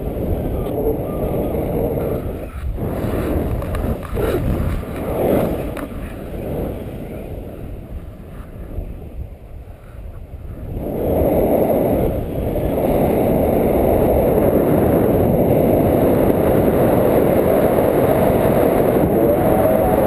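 Wind rushing and buffeting over the microphone of a paraglider in flight. It is a low rumbling rush that eases for a moment in the middle, then grows louder and steady just past halfway.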